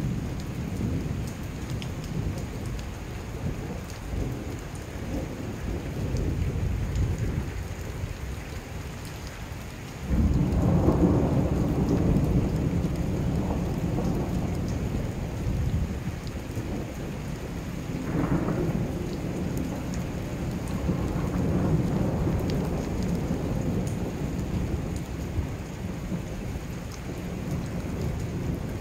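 Thunderstorm: steady rain with thunder rumbling throughout. About ten seconds in, a sudden loud clap of thunder rolls on for several seconds, and a second sharp crack comes some eight seconds later.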